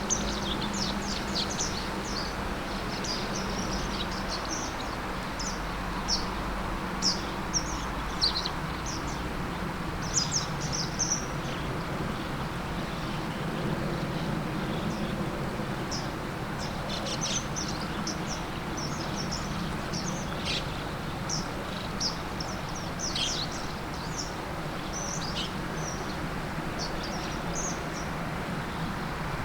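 Juvenile Japanese wagtail calling: short, sharp, high calls given in irregular runs, several a second at times, over a steady background rumble.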